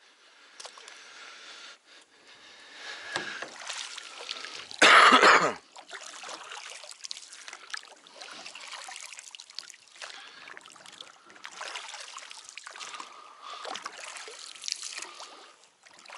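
Water sloshing and trickling in repeated bursts, with one much louder burst about five seconds in.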